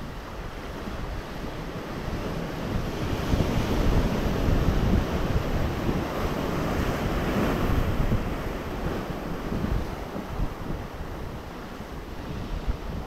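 Ocean surf breaking and washing ashore, swelling to its loudest in the middle and then ebbing, with wind buffeting the microphone.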